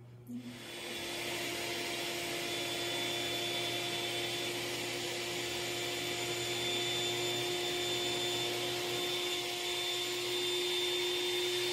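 A small electric motor running steadily: a constant whir with a steady hum, starting suddenly about half a second in.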